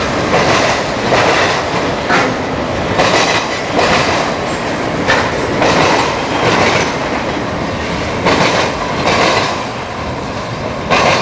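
Union Pacific auto-rack freight cars rolling past, their steel wheels clacking over the track joints in a repeated clickety-clack, about one loud beat a second over a steady rumble.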